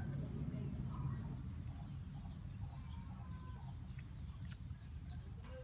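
Chickens clucking faintly now and then over a steady low rumble, with a few faint high chirps.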